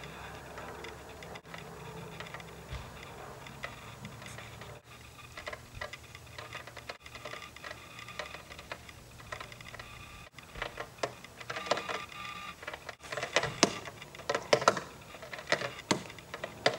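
Mechanical ticking and clicking, sparse at first over a low hum, growing denser and louder over the last few seconds, with a few brief dropouts.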